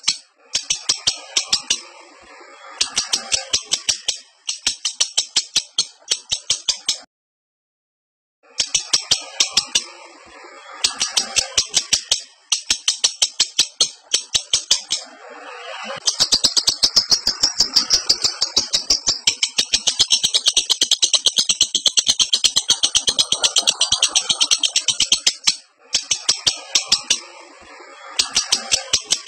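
Lovebird in breeding condition chattering in fast trains of sharp, high, rattling notes, in runs of a few seconds with short breaks, then one long unbroken run of about ten seconds in the second half: the drawn-out 'ngekek' chatter of a lovebird in heat. The sound cuts out completely for about a second and a half, some seven seconds in.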